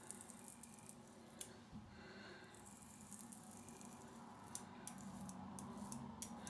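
Faint scrape of a Leaf three-blade razor drawn lightly up a lathered shin, with a few soft ticks.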